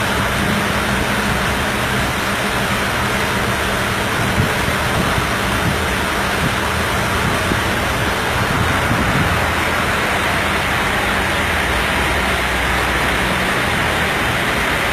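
Steady machine noise: an even hiss with a low hum beneath it.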